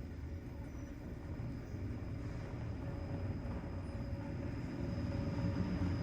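Otis 2000 passenger lift travelling downward, heard from inside the car: a steady low rumble with a faint steady hum and a thin high whine, slowly growing louder.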